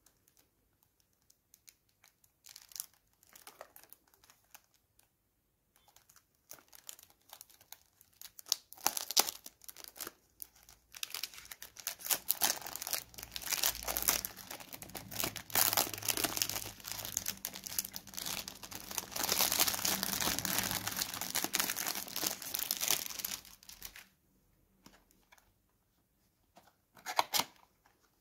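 Clear cellophane wrap being torn and peeled off a cardboard perfume box. A few scattered crinkles and taps come first, then about twelve seconds of dense crinkling, and one short crinkle near the end.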